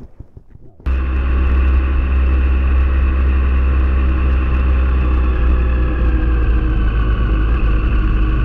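Motorcycle engine idling steadily with a low rumble, cutting in abruptly about a second in; before that only faint wind noise.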